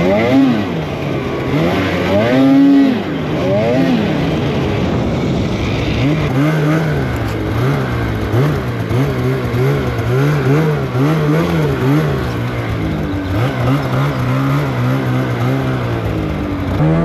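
Snowmobile engine under way, its pitch rising and falling again and again with the throttle. There are a couple of long climbs and drops about two to four seconds in, then quicker, shorter surges.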